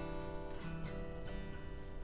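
Acoustic guitar played on its own, chords ringing with a few note changes.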